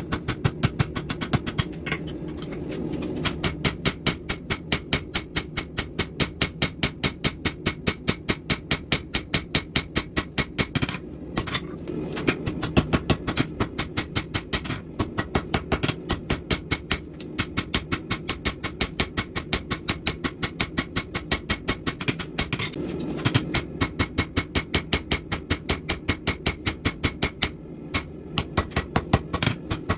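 Steady, rapid hammering on steel at the anvil, about four blows a second with a few brief pauses, over a steady low hum.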